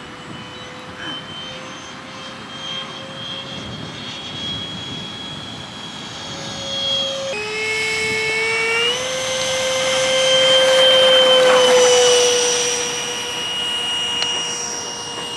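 Radio-controlled model Mirage 2000 jet flying overhead with a steady whine. The pitch drops suddenly about seven seconds in and climbs again near nine seconds as the throttle changes. It grows loudest as the model passes, then fades.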